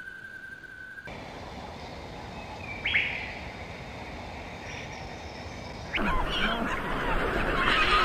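A single sharp bird chirp about three seconds in, then from about six seconds in a breeding colony of black-legged kittiwakes calling loudly, with many overlapping cries.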